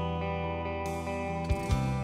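Instrumental background music with plucked guitar: a new chord strikes about a second in, and two low thumps come near the end.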